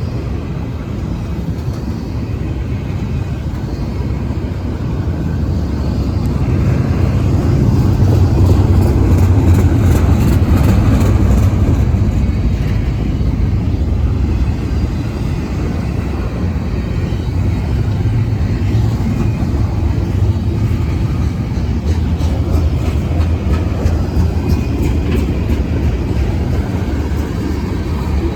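Freight train rolling past, a steady low rumble that swells to its loudest about eight to twelve seconds in, then eases slightly.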